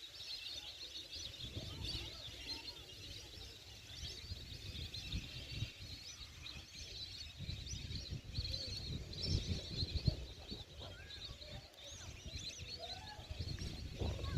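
A flock of migratory birds calling: many overlapping short, high chirps throughout, over a low, uneven rumble.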